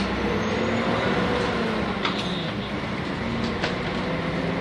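Nissan Diesel UA city bus's PU6 natural-gas engine running, heard from inside the cabin, its pitch drifting up and down, with a few sharp clicks and rattles of the bus body about two and three and a half seconds in.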